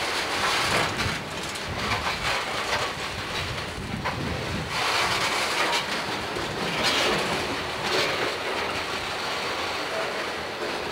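Freight train of CSX covered hopper cars rolling past close by: a steady rumble of steel wheels on rail, with occasional sharp clacks as the wheels run over the rail joints.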